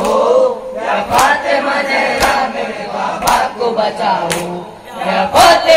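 A crowd of men chanting a Muharram noha refrain together, over sharp matam strokes of hands beating on chests about once a second.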